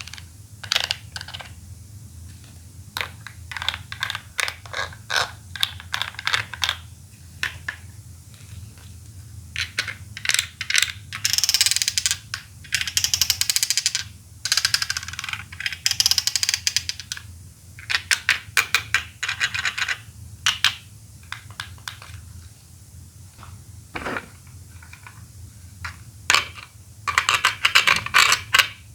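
Plastic Poké Ball toys being handled: a series of sharp clicks and snaps, broken by several stretches of fast, dense clicking clatter.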